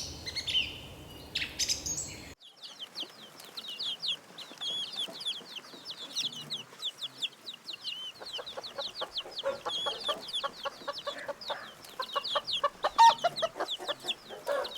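Chickens clucking, with a dense run of quick, high chirps throughout and short clucks coming thicker in the second half.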